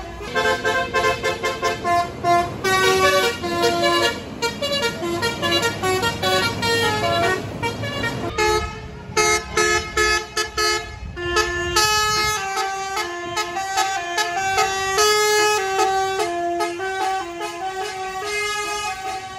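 A tour bus's Basuri telolet horn, a multi-tone melodic air horn, playing a tune as a quick run of changing notes. A low engine rumble sits under the first half and drops away about eight seconds in.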